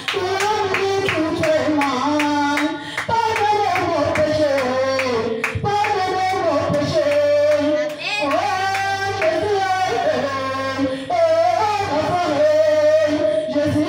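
A woman singing a worship song through a microphone and PA, holding long notes that slide between pitches, over a steady beat of sharp claps.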